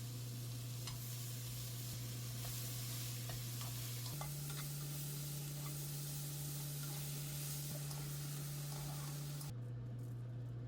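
Oyster mushrooms and vegetables sizzling in a frying pan, with light clicks of a utensil stirring them. The sizzle cuts off abruptly near the end, leaving a low steady hum.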